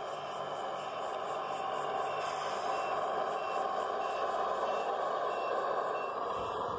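Remote-control model city bus reversing: a steady whir from its motor and wheels, with a short high electronic reversing beep repeating about every two-thirds of a second from a couple of seconds in.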